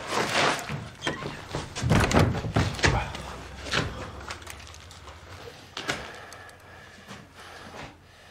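Several knocks and thuds, most of them in the first four seconds, from a wooden door and footsteps in a small room, then fainter scattered knocks.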